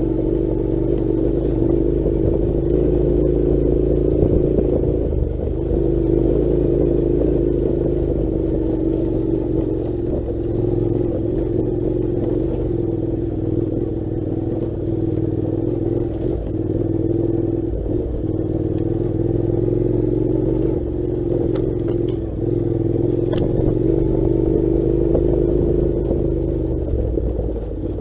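Honda NC700's 670 cc parallel-twin engine running at steady low revs, the pitch wavering slightly as the motorcycle picks its way along a rough, rocky dirt track. A few sharp clicks of clatter come near the end.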